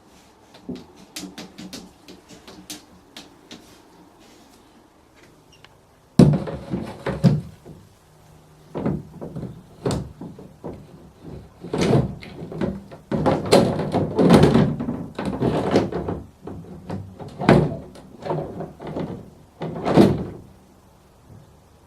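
Window being cleaned: wiping strokes and knocks against the glass pane and frame in irregular bursts, loud from about six seconds in after a few faint clicks.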